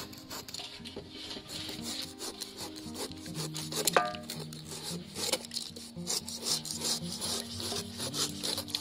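Large kitchen knife slicing and scraping through the thick spiny rind of a whole jackfruit in repeated short strokes, with a single loud metallic clink about four seconds in.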